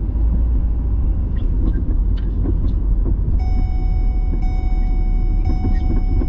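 A car driving slowly, heard from inside the cabin: a steady low rumble of engine and road noise. About three seconds in, a steady high-pitched tone joins it and holds.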